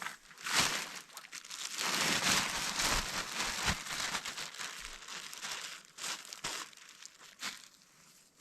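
Irregular crinkling and rustling, as of something being handled, loudest in the first half, with a few sharp clicks, then tailing off.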